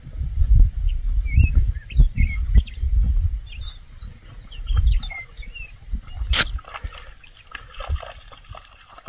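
Small birds chirping in short quick notes over a gusty low rumble of wind on the microphone, with one sharp click about six seconds in.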